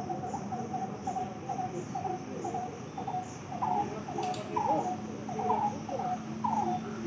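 Animal chirping: short calls repeating about twice a second, over a faint steady hum, with a single click about four seconds in.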